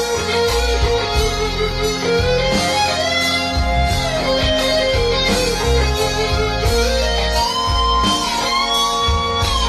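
Instrumental break of a pop song's backing track: a lead guitar plays a slow melody of long, sliding notes over bass and a steady drum beat.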